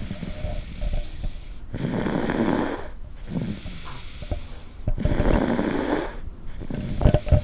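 A one-year-old toddler snoring loudly in deep sleep: two long snores about three seconds apart, with quieter breaths in between.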